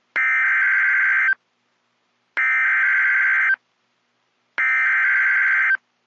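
NOAA Weather Radio EAS/SAME digital header: three identical data bursts, each a little over a second long, separated by about a second of silence. It is the coded header that triggers Emergency Alert System receivers to activate, here for a Severe Weather Statement.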